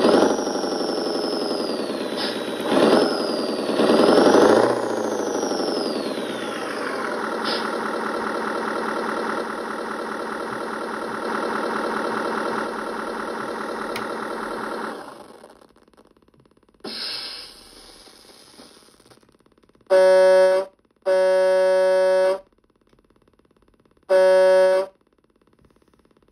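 Simulated truck engine sound from an Arduino ESP32 RC engine sound controller, played through two small speakers. The engine revs up and down several times, settles to a steady run, then winds down and stops. A short hiss follows, then three blasts of a simulated truck horn, the second one longest.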